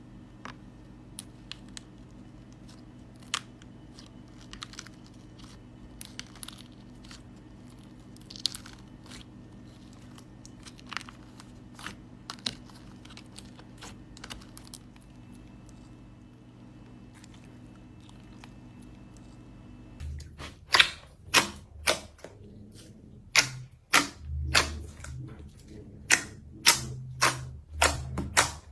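Slime being handled: sticky clicks and small pops. They are faint and scattered at first over a steady low hum, then louder and quicker, a few per second, from about two-thirds of the way in.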